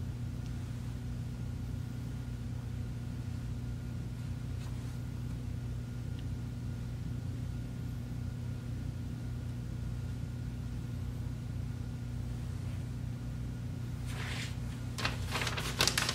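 A steady low hum of room machinery. About two seconds before the end, a paper towel crinkles and rustles in short crackling strokes as a chopstick is wiped in it.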